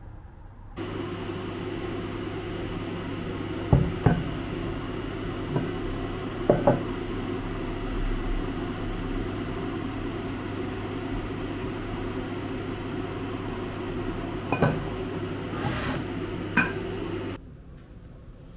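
A steady electric appliance hum that starts just under a second in and cuts off sharply near the end. Several light clinks and knocks of a ceramic cup and tableware sound over it.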